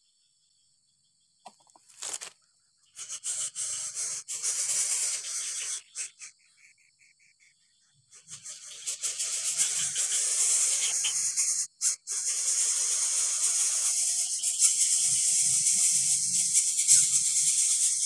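Coucal nestlings giving loud, rasping hisses while begging as an adult feeds them at the nest. The hissing comes in bursts from about three seconds in, then runs continuously from about eight seconds. Faint steady insect trilling is heard before it starts.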